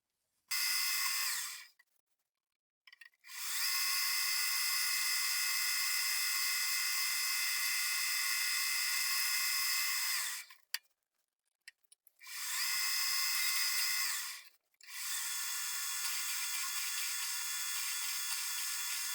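A power tool runs with a steady high whine in four bursts: a short one, a long one of about seven seconds, another short one, then a run that carries on. Each burst spins up and winds down.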